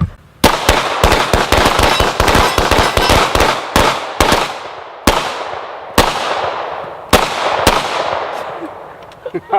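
Gunfire: a fast string of shots for about three seconds, then six spaced single shots, each followed by a long echo tail.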